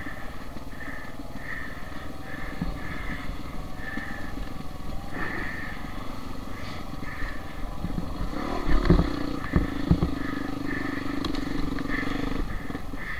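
Dirt bike engine running steadily while the bike is ridden along a dirt trail, with a few loud knocks about nine and ten seconds in.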